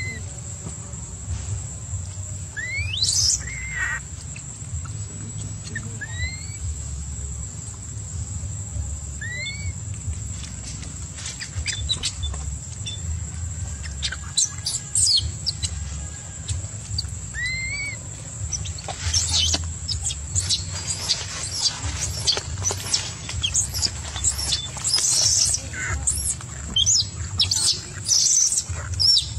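Short, high-pitched rising calls, one every few seconds, over a steady low hum and a thin high hiss. From about two-thirds of the way in, a dense run of scratchy rustling and clicks takes over.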